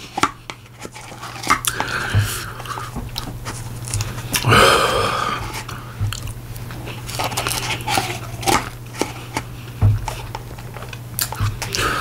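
A person eating a Dairy Queen mini Blizzard (soft-serve ice cream with mix-ins) by the spoonful: close-up wet chewing and mouth clicks, with a louder breathy sound about halfway through. A low steady hum runs underneath.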